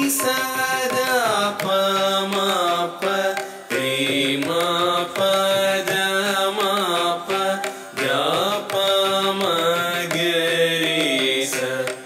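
Carnatic music accompanying Bharatanatyam dance: a melodic line of long held notes that glide up and down in pitch, phrase by phrase.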